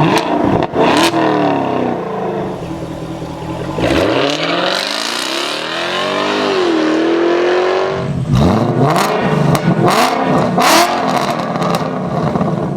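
The 2017 Lotus Evora 400's supercharged V6 and multimode exhaust revving and accelerating, its pitch climbing and dropping through gear changes. The last few seconds are choppier, with sharp pops and cracks from the exhaust.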